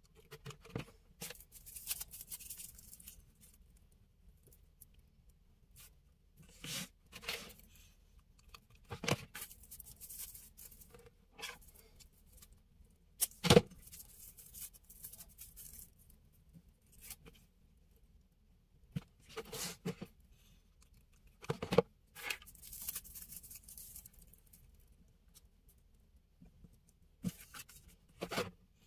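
Hands handling dry raffia tassels and the frame: scattered rustling and crinkling with occasional short clicks and taps, the sharpest click about halfway through.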